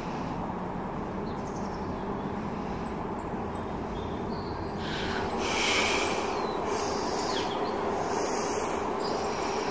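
Steady low outdoor rumble, with a few short breathy hisses in the second half as a person sips from a cup and breathes out.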